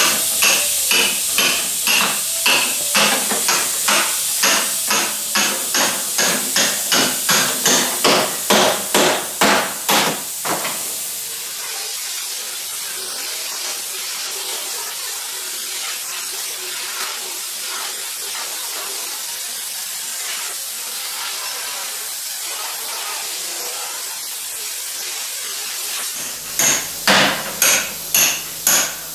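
Hammer driving a steel chisel along the folded hem seam of a truck door's old outer skin, sharp metallic blows about two a second for some ten seconds. This separates the hem flange from the door frame. Then a steady grinding hiss from an angle grinder working the door edge, and the hammer blows start again near the end.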